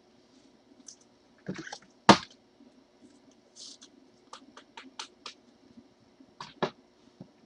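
Trading card packaging and plastic card holders being handled on a table: a sharp click about two seconds in, then a quick run of light clicks and taps, and two knocks near the end.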